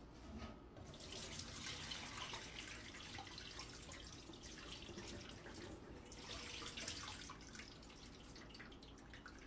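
Water being poured off a bowl of chicken pieces into a stainless steel sink, splashing on the steel and running into the drain, thinning out near the end.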